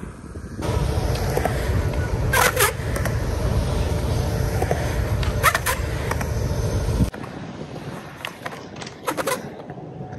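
Skateboard wheels rolling on a concrete ramp in a low rumble, broken by sharp clacks of the board striking the ramp, a pair about two and a half seconds in and another about five and a half seconds in. The rumble cuts off suddenly about seven seconds in, leaving fainter rolling and a few more clacks near the end.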